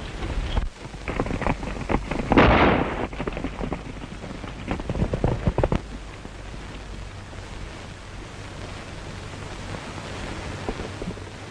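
Horses' hooves clattering on rocky ground, with a loud crash of about a second roughly two and a half seconds in. Over the last half, only the steady hiss of an old optical film soundtrack remains.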